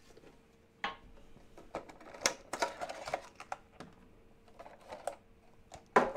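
Metal collectible card tin and its plastic insert being handled: scattered light clicks, taps and plastic clatter, with a louder cluster near the end.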